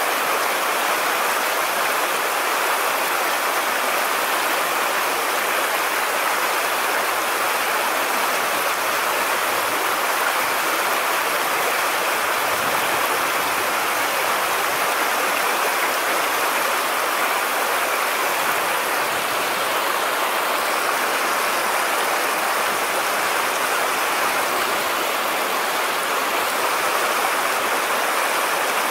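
Steady rushing of shallow stream water running over a riffle.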